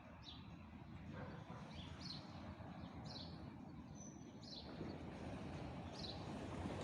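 A thrush calling: short, high, falling chirps repeated roughly once a second, with a brief thin whistle about four seconds in, over a steady low background hum.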